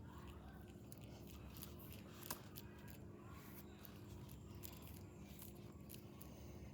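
Near silence: a faint steady hum with scattered small clicks and rustles, and one sharper click a little over two seconds in.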